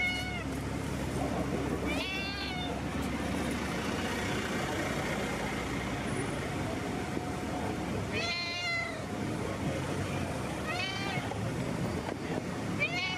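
Tabby cat meowing repeatedly, about five meows a few seconds apart, each rising and then falling in pitch, the loudest a little past the middle. Steady low street rumble underneath.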